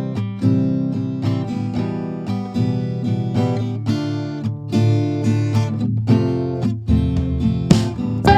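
Background music: acoustic guitar strumming and picking in a steady rhythm.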